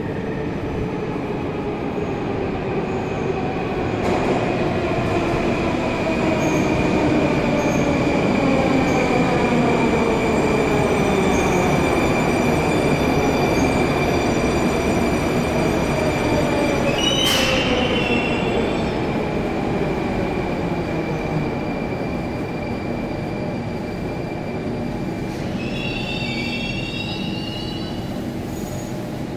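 A Moscow metro train pulls into the station and brakes to a stop, its motor whine falling steadily in pitch. There is a sharp brief squeal partway through, and a few wavering high-pitched squeals near the end as it comes to rest.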